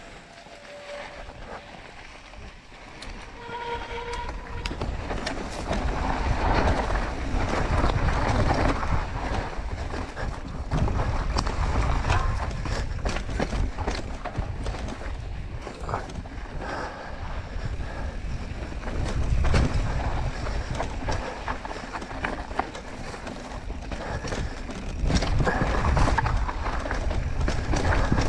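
Mountain bike rolling fast down a dirt trail: tyre roar, rattling and clatter over bumps, and rushing wind on the microphone, growing louder over the first several seconds.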